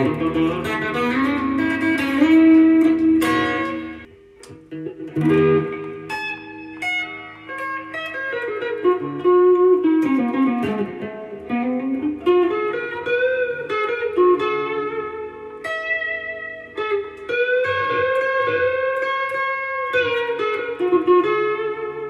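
Strat-style electric guitar with a solid ash body, walnut top and Tex-Mex single-coil pickups, played through a Boss Katana amp with a twangy, lightly broken-up tone. A run of single notes and chords, with notes bent down and back up in pitch around the middle.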